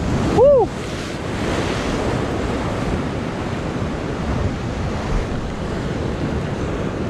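Ocean waves breaking on the rocks just below, a steady rush of surf and spray with wind buffeting the microphone. About half a second in, a short high call rises and falls in pitch, louder than the surf.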